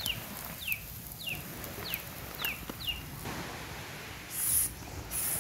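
A small animal calls in six short falling chirps, about two a second. Near the end come two short hisses from an aerosol spray, typical of insect repellent being sprayed.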